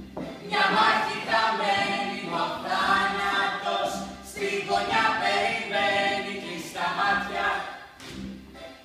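A group of voices singing a song together without instruments, in phrases with short breaks between them.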